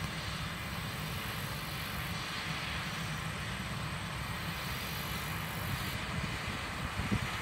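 Combine harvester and grain-cart tractor working the field at a distance: a steady machine drone with a fluttering rumble underneath.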